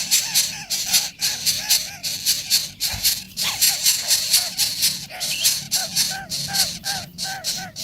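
A young bird calling over and over in short, rising-and-falling notes, about two to three a second and coming faster near the end, over a fast, dry rattling hiss.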